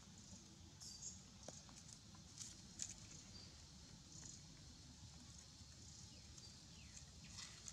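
Faint rustling and light crackling of dry leaves on dirt ground as monkeys shift and scramble about, with a few soft ticks, the sharpest about three seconds in, over a steady low background rumble.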